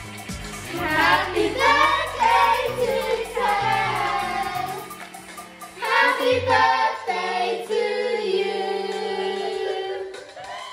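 A group of family voices, children's among them, singing a birthday song together to a child in front of her cake with its lit candle.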